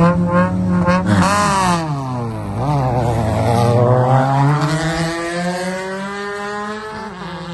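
Class 10 off-road race buggy's engine revving: its pitch drops, then climbs back up and holds, over the steady hum of another engine running.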